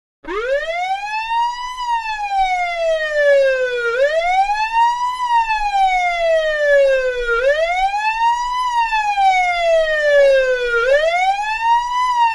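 Russian police siren wailing: a tone that starts from low pitch just after the start, climbs quickly and then falls slowly, rising and falling about every three and a half seconds.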